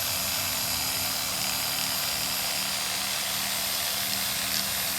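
Chainsaw engine running at a steady pitch under a constant hiss.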